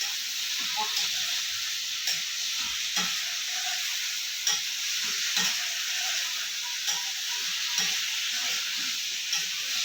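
Cauliflower curry sizzling in hot oil in a pan while being stirred, with the spoon knocking and scraping against the pan about once a second. It is being fried dry until its colour changes, before any water is added.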